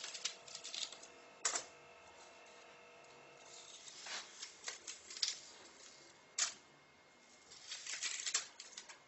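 Kitchen knife slicing an onion: irregular sharp taps and clicks in small clusters, with single louder taps about one and a half and six and a half seconds in.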